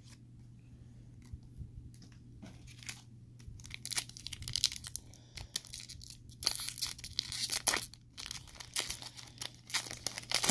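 Trading-card pack wrapper crinkling and tearing as the pack is opened, in short crackly bursts from about four seconds in, after a few soft clicks of cards being handled.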